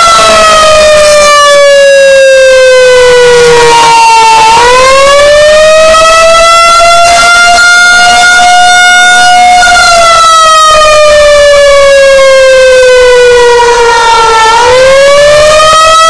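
Outdoor civil-defense warning siren on a pole, its rotating horn sounding a very loud wail during a siren test. The pitch falls slowly for about four seconds, swings back up and holds, then falls and rises again about ten seconds later.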